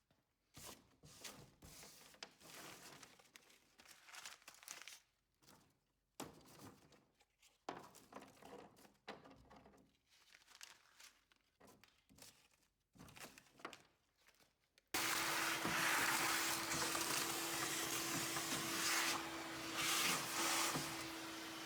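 Quiet, irregular scraping and crinkling handling sounds. About fifteen seconds in, a small electric motor tool switches on suddenly and runs steadily with a constant hum.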